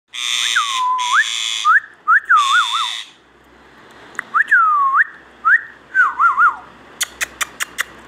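Indian ringneck parakeet whistling a short swooping tune twice: a sliding glide followed by quick warbles. The first time is louder, with a harsh rasp over it. Near the end come about six sharp clicks in quick succession.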